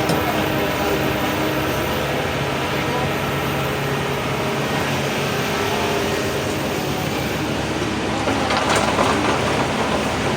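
Excavator diesel engine running steadily at working speed, with a stretch of clattering knocks from about eight seconds in.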